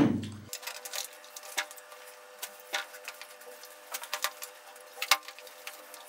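Eating sounds: a fork clicking and scraping in aluminium foil trays of macaroni béchamel, with chewing and mouth noises, heard as irregular soft clicks over a faint steady hum.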